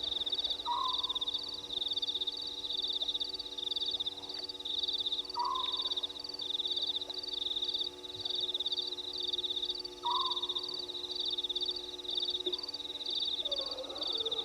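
Nocturnal frog and insect chorus. A continuous high, pulsing trill repeats in short trains, a sharp short call comes about every five seconds, and a faint steady low hum runs underneath.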